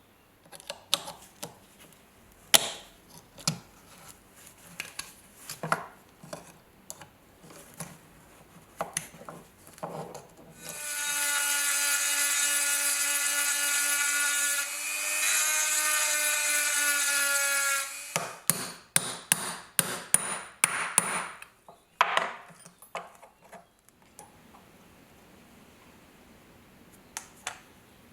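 Scattered sharp clicks and knocks of hand work on a small metal object, then a small electric power tool runs steadily for about seven seconds and stops, followed by a quick run of clicks and taps.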